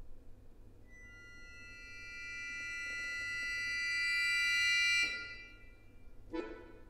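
Solo accordion holding a high cluster of sustained notes that swells slowly louder from about a second in and cuts off abruptly at about five seconds. A short, sharply attacked lower chord follows near the end.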